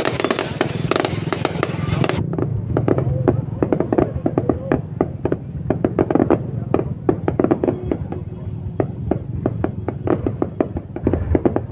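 Fireworks going off: a dense, uneven run of sharp pops and bangs over a low rumble.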